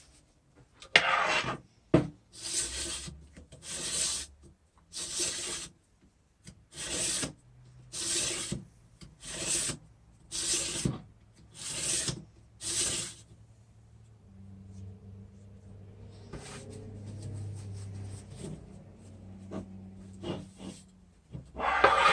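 Hand rubbing grease along a car window regulator's track and cables: about a dozen short rubbing strokes, roughly one a second. A faint low steady hum follows in the second half.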